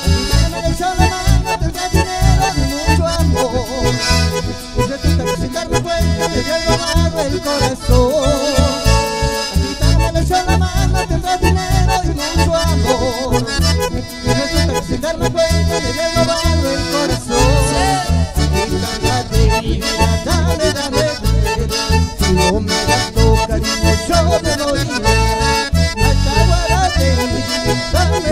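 Live instrumental passage of Latin American folk dance music led by piano accordion and bandoneon, with acoustic guitar and electric bass keeping a steady beat underneath.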